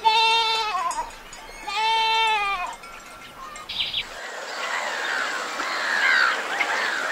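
Goat bleating twice, two drawn-out calls of about a second each that fall in pitch at the end. From about halfway, a busy chorus of short high chirping calls takes over.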